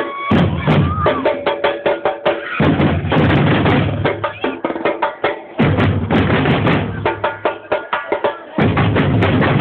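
Samba bateria drum section playing: dense, fast drum strokes, with deep bass-drum passages returning about every three seconds.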